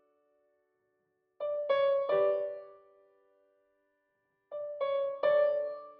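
Background music: slow piano notes played in groups of three, each group ringing out and fading, with a short silent pause between the groups.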